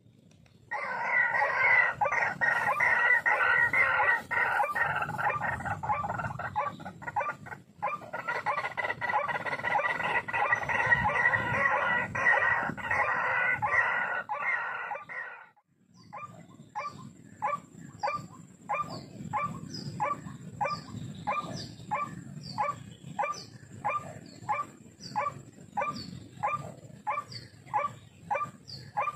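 White-breasted waterhen calling: a long, dense run of harsh croaking calls, which breaks off after about fifteen seconds, then a steady series of short repeated notes at about two a second.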